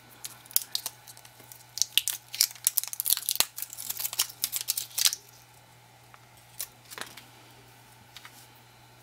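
Thin factory plastic wrap being peeled off an 18650 cell by hand: a dense run of crinkling and tearing crackles for a few seconds, then a few light clicks.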